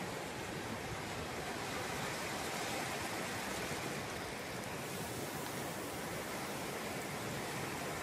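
Ocean surf at the shoreline: small waves breaking and foam washing up over sand, a steady hiss without distinct crashes.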